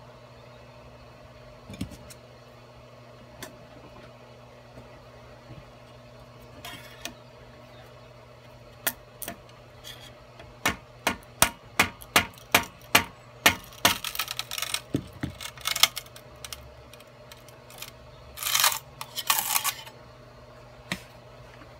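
3D-printed plastic palm being worked loose from a 3D printer's print bed: a run of sharp clicks about two a second, then two short scraping rustles as it comes free. The printer's fans hum steadily underneath.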